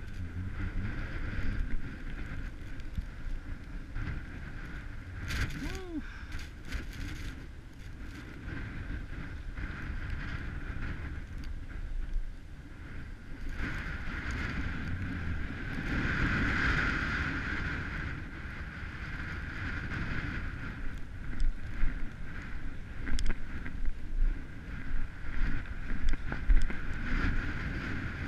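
Skis sliding and scraping over snow during a downhill run, with wind buffeting the microphone. In the last several seconds there is a quick run of sharper, louder scrapes.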